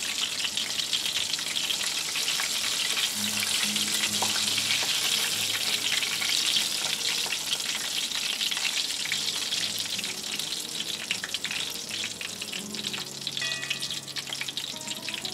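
Guacamole-and-flour-coated chicken deep frying in hot oil: a steady, dense crackle and sizzle of bubbling oil with many small pops, easing slightly in the last few seconds.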